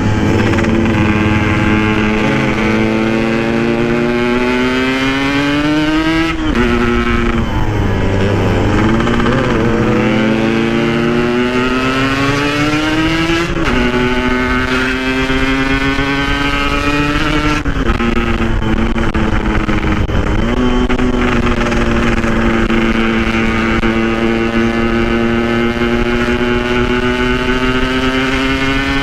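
Yamaha RX-King two-stroke single-cylinder motorcycle engine, running through a standard-style exhaust with a repacked silencer, pulling hard under way. Its pitch climbs steadily and drops sharply at each upshift, about 6, 13, 17 and 20 seconds in, then climbs again.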